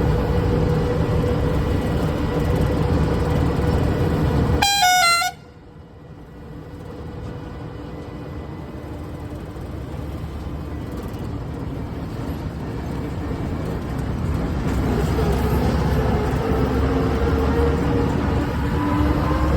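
Preet 987 combine harvester's engine running steadily, with a short horn blast that steps in pitch about five seconds in. The sound then drops away suddenly and the engine noise builds back up, its pitch rising near the end.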